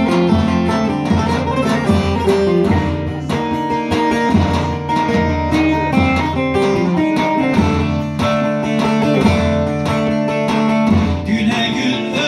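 Instrumental passage of a Turkish folk song played on a plucked bağlama (long-necked saz) over a band accompaniment. A man's voice begins singing near the end.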